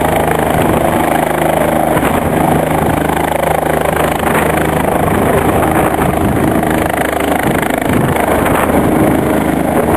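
Light helicopter's rotor and turbine running loud and steady as it lifts off and passes low overhead.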